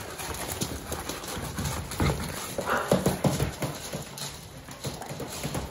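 Pit bull puppies eating dry kibble together from a shared metal bowl: a jumble of crunching, gulping and small knocks, busiest around the middle.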